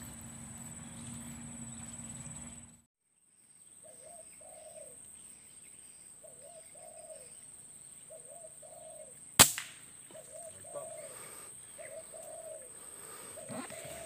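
A spotted dove cooing over and over, short two-part coos about every two seconds. One sharp air-rifle shot cracks out about nine seconds in and is the loudest sound. It opens with a steady rustle of walking through brush that cuts off abruptly about three seconds in.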